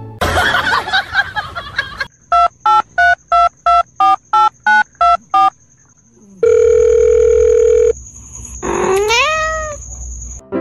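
Telephone-style beeps: after a short burst of rustling noise, ten evenly spaced beeps, then a steady dial tone lasting about a second and a half. Near the end comes a short rising cry that levels off, like a cat's meow.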